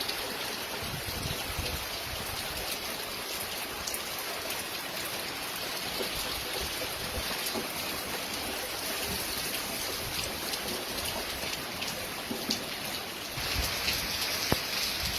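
Heavy rain falling steadily, with scattered sharper drop hits through the hiss; the downpour grows a little louder near the end.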